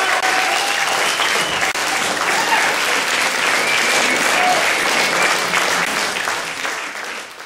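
Audience applauding steadily after a song, fading out near the end.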